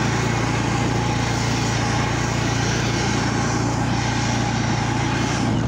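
Snowblower engine running steadily while the machine throws snow.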